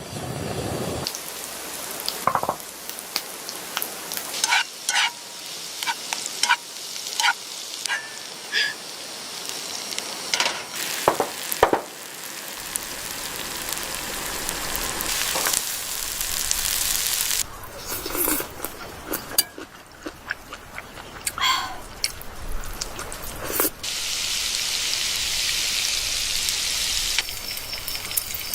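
Food frying and sizzling in a pan, with scattered sharp clinks and knocks of cookware and utensils. The sizzle swells and fades in long stretches in the second half.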